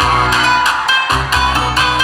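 Loud pop backing track starting abruptly over a concert sound system, with a heavy bass beat and regular percussive hits; the bass drops out briefly about a second in.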